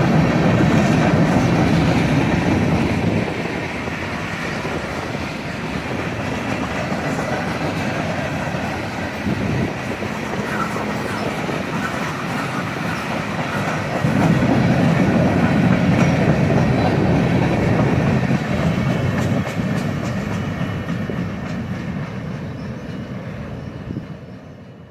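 A train rolling past on the rails, its cars and wheels rumbling steadily. It swells louder twice and fades out near the end.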